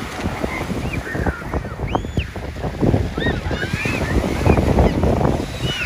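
Sea surf washing on the beach with wind buffeting the microphone, and repeated short high calls that rise and fall.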